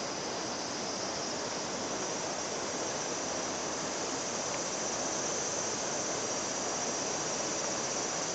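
Steady rushing of a mountain river flowing over rocks, with a thin high steady tone above it that grows a little stronger toward the end.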